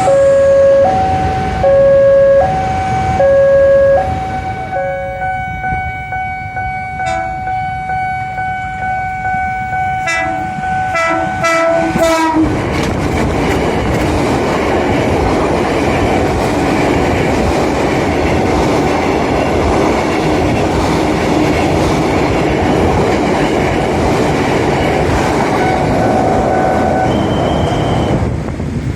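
KRL Commuter Line electric train horn, switching between a higher and a lower note about once a second, then holding one long note as the train comes on at speed. About twelve seconds in the train rushes past with loud wheel and rail clatter and air noise, and a short horn note sounds near the end.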